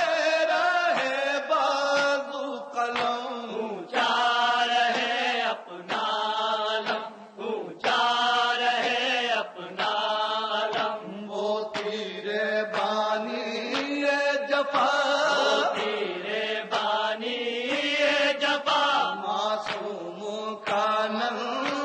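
Male voice chanting an Urdu noha, a Shia lament, in long held phrases with brief pauses between them.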